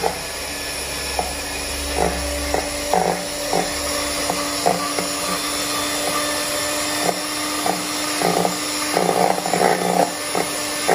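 Electric hand mixer running steadily, its beaters whipping egg whites in a stainless steel bowl, with the beaters knocking against the bowl again and again, more often near the end.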